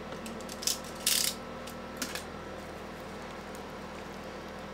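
Plastic shrink wrap on a CD album crinkling in a few short rustles as it is slit with a cutter and peeled open, the longest about a second in.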